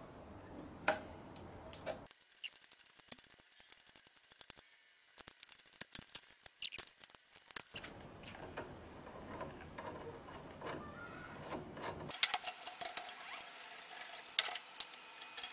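Irregular light metallic clicks and clinks of hand wrenches working on a bicycle crankset and the bike being handled.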